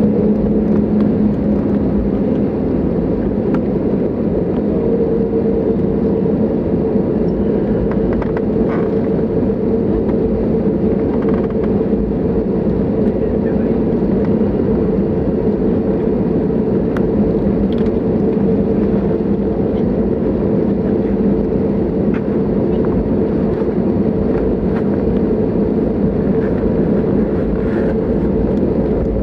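Cabin noise of an Airbus A320neo taxiing: a steady engine rumble with a constant low hum and a higher hum over it.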